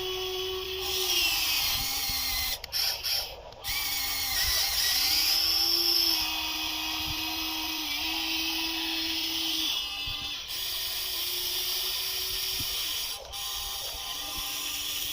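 Small electric motors of radio-controlled construction toys whining as they are driven, probably the Huina 1594 excavator's, its pitch stepping up and down with each move and a higher whine gliding over it. Brief breaks about three seconds in.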